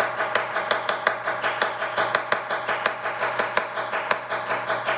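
Chef's knife slicing a white onion on a wooden cutting board, quick even chops about four to five a second, over background guitar music.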